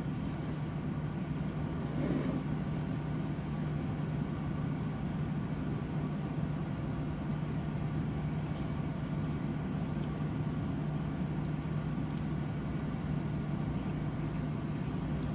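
Room tone: a steady low hum under a constant rushing background noise, with a few faint clicks about halfway through.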